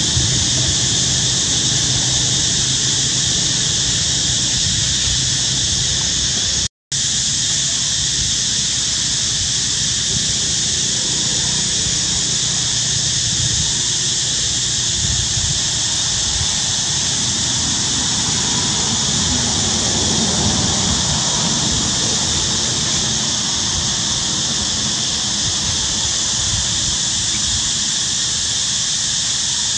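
Loud, steady high-pitched drone of an insect chorus, with a low rumble beneath. It drops out for an instant about seven seconds in.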